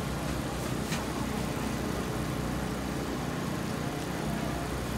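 Steady outdoor background noise with a heavy low rumble, and a single sharp click about a second in.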